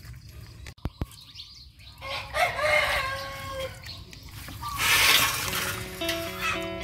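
A rooster crows once, a drawn-out call starting about two seconds in. Near the end there is a brief rush of splashing as hands work in a bucket of water, and background music begins.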